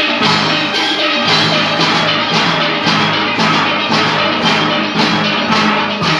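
A steel band of many steel pans playing together, tenor pans over a row of large bass pans, with a steady beat.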